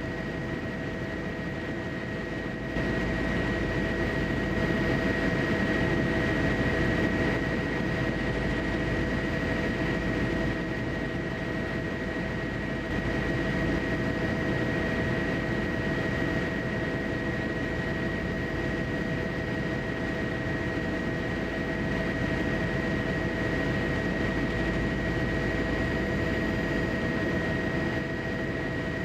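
Airplane engine noise: a steady rumble with a constant high whine, stepping up in level about three seconds in.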